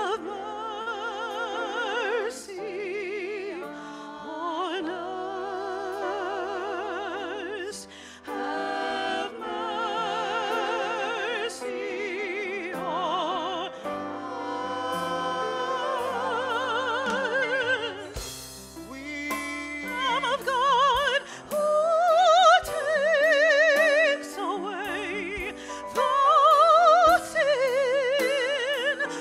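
Live church worship music: singers holding long notes with strong vibrato, accompanied by piano. The singing drops away briefly past the middle, then returns louder.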